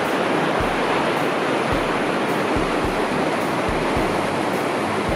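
Rushing whitewater of a river rapid pouring over rocks, a steady dense noise with irregular low thumps underneath.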